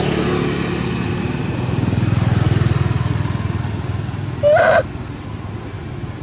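A small engine running steadily with a low pulsing hum, and one short, loud, high-pitched macaque call about four and a half seconds in.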